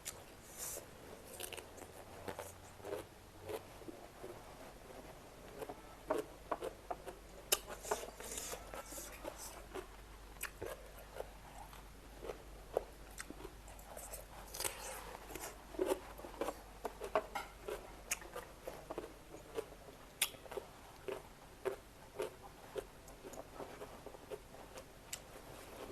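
A person eating close to the microphone: biting and chewing food with moist smacks and crisp crunches, in irregular bursts, several a second at times.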